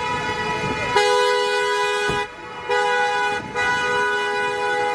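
A vehicle horn blaring in long held blasts of several notes at once, starting about a second in and breaking off briefly twice, amid a street crowd.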